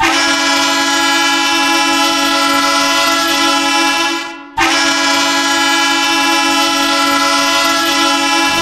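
Ice hockey goal horn sounding two long, steady blasts. The first fades out a little over four seconds in, and after a brief gap the second comes straight back at full strength.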